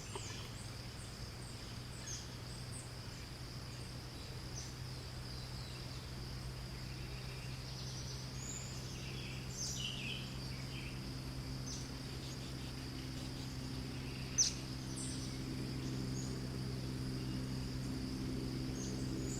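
Outdoor ambience of a steady high insect trill with scattered short bird chirps, the sharpest about three quarters of the way through. Underneath runs a low steady hum that grows a little louder partway in.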